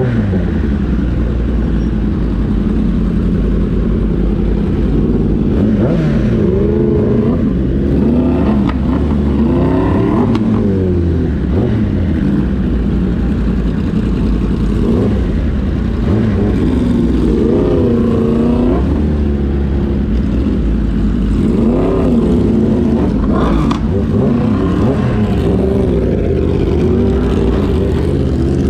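Kawasaki ZX-10R superbike's inline-four engine running, its revs rising and falling several times over a steady low rumble.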